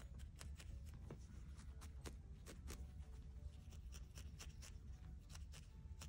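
Felting needle jabbing repeatedly into a small ball of core wool held in the fingers: faint, irregular crunchy ticks a few times a second, over a low steady room hum.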